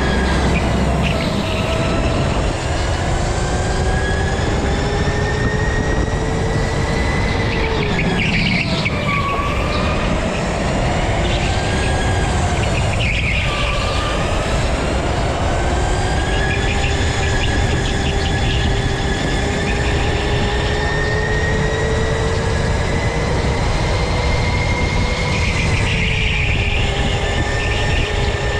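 Go-kart driven at speed on an indoor track, heard from the driver's seat: a whining motor note that rises and falls with speed, dipping through the corners, over steady tyre and road rumble.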